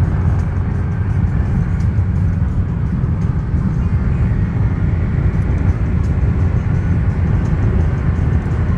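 Car cabin noise while driving: a steady low rumble of road and engine heard from inside the car.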